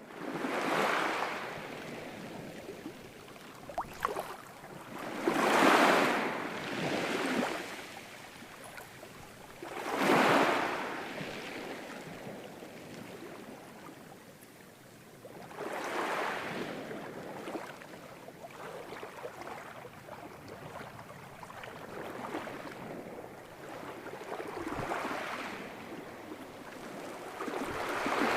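Ocean surf: waves breaking and washing in, each one a swelling rush of noise that rises and fades, coming every four to six seconds with a softer wash between them.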